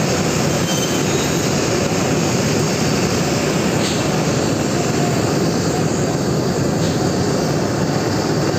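Propane torch burning with a steady, unbroken rush of flame as it heats a steel pipe socket fitting.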